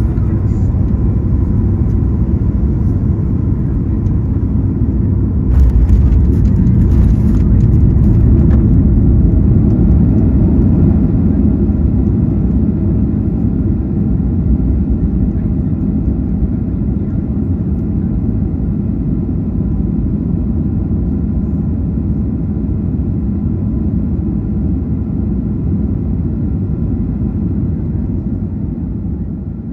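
Cabin noise inside a Boeing 737 MAX 8 during landing: a loud, steady rumble of the CFM LEAP-1B engines and airflow. A short burst of rattling comes about six seconds in, where it is loudest, and then the rumble slowly dies away toward the end.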